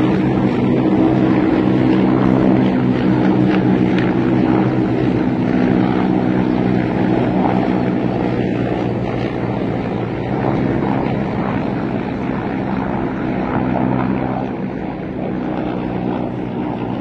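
A group of military helicopters flying overhead: a steady, deep rotor and engine drone made of several even tones that slowly fades as they fly off.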